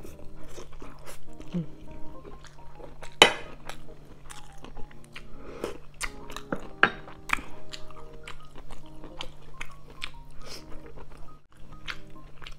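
Close-miked chewing and wet mouth sounds of someone eating pork rib adobo with rice by hand, with many short clicks and smacks and one sharp click about three seconds in. Soft background music with held notes plays under it.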